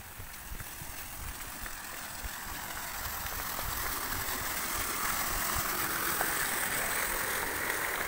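Wind rushing over a phone microphone, swelling louder over the seconds with low irregular buffeting, and a few light footsteps on concrete steps in the first seconds.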